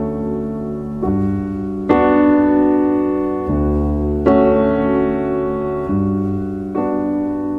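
Piano music: slow sustained chords, a new chord roughly every second, with two harder-struck chords about two and four seconds in.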